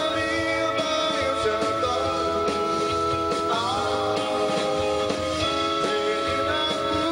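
Live band playing amplified music: long held chords over electric bass.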